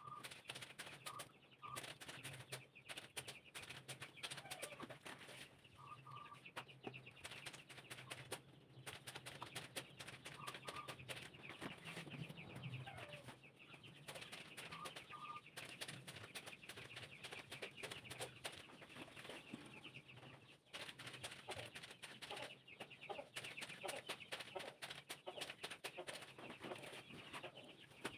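Faint, continual small clicks and rustling of things being handled, with a few short chirping calls now and then.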